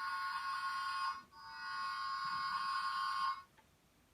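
Electronic toy sound from a small speaker: two long, steady, buzzy horn-like blasts with a brief break between them about a second in, the second cutting off about three and a half seconds in.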